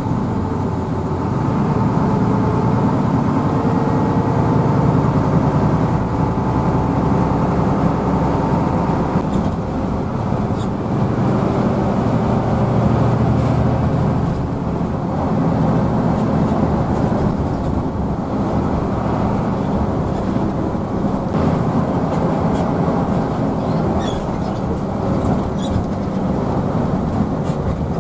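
Inside the cabin of a Hino AK intercity bus on the move: a steady engine drone mixed with road noise. A faint humming tone sits on top during the first several seconds and then fades.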